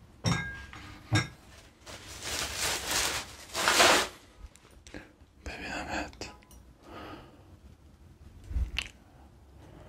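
Close-miked clicks and knocks, then bursts of rustling, brushing noise, loudest in the middle, and a low thump near the end.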